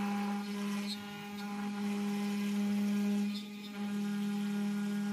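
Makera Carvera Air desktop CNC spindle running at 12,000 RPM with a steady hum while a 30-degree engraving bit cuts into a walnut board.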